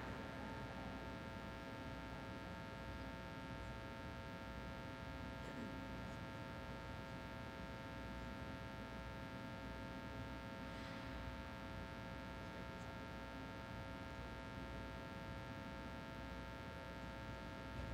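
Quiet rink room tone: a steady low hum with a few faint steady tones running under it, as the applause dies away at the start.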